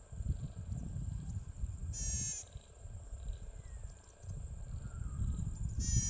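Golden-headed cisticola giving its short buzzy call twice: once about two seconds in and again near the end.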